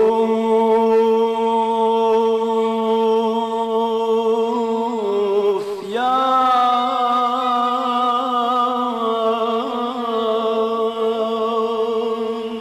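Man's voice singing two long held notes in Kurdish song style, with no clear words; the first note breaks with a short slide about six seconds in into a slightly higher note, held with a light waver.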